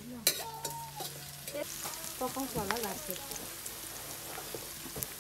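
Sliced onions sizzling in an iron wok over a wood fire as a metal ladle stirs them, with a sharp clank of the ladle against the pan about a quarter second in. Short wavering calls sound now and then in the background.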